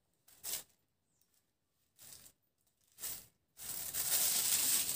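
Saree fabric rustling as it is handled and spread out: three short swishes, then a continuous rustle from about three and a half seconds in.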